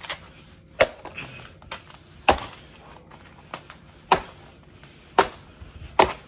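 A sneaker stomping on a firework tube on a concrete floor: five sharp thuds at uneven intervals.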